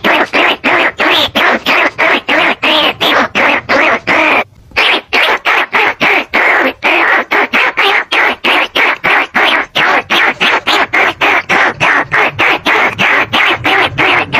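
Rat lure call: a fast, unbroken string of rat squeaks, about four a second, with one short break about four and a half seconds in. It is a calling sound used to draw in bandicoot rats and rice-field rats.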